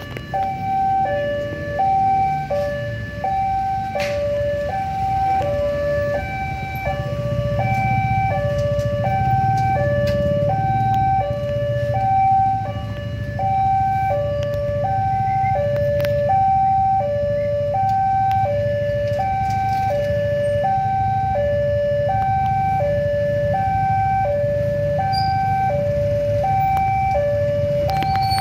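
Railway level-crossing warning alarm sounding its electronic two-tone "puong" signal: a higher and a lower note alternate steadily, one pair about every second, warning that a train is coming and the barriers are down. A low rumble runs underneath.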